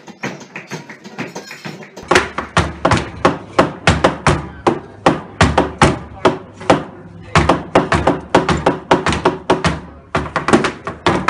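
Flamenco dancer's footwork (zapateado): rapid, loud shoe stamps on a hard floor, several a second, in runs broken by short pauses. It starts about two seconds in, after a quieter stretch of flamenco music.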